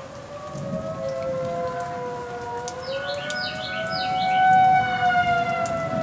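Outdoor warning sirens wailing, their pitch slowly rising and falling and their sound swelling to a peak after about four seconds, over steady rain. A bird chirps briefly about three seconds in.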